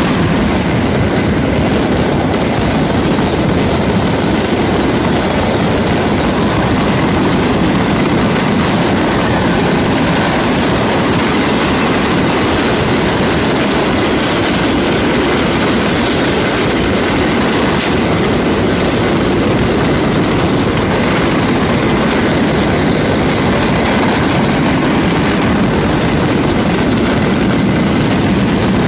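A whole stock of fireworks going off by accident in a dense, unbroken barrage: many overlapping bangs and crackles merging into a steady rumble.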